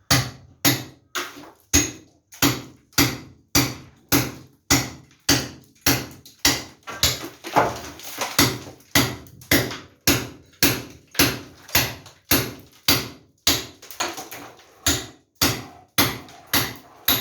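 Hammer blows on a wall, struck steadily at a bit under two blows a second.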